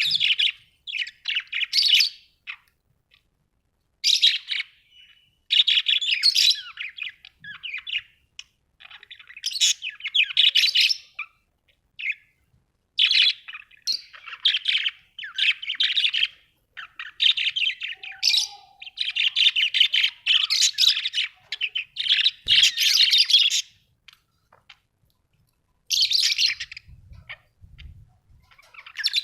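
Budgerigars chattering and warbling: bouts of fast, jumbled chirps and squeaks a few seconds long, broken by short pauses.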